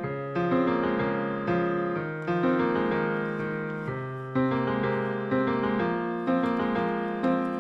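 Slow solo piano background music, with a new note or chord struck about once a second and each left to ring and fade.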